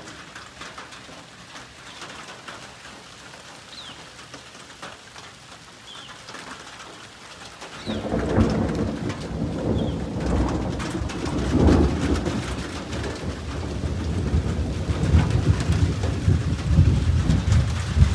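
Rain falling steadily, with a few short bird chirps. About eight seconds in, a long rumble of thunder starts suddenly and rolls on, swelling several times; it is the loudest sound.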